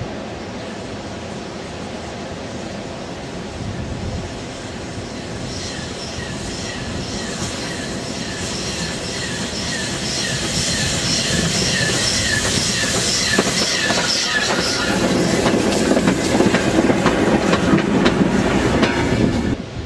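GWR 1366-class pannier tank steam locomotive No. 1369 approaching and passing close, its sound growing louder as it nears. A squeak repeats evenly, about two or three times a second. As it goes by, the wheels click over the rail joints. The sound cuts off suddenly near the end.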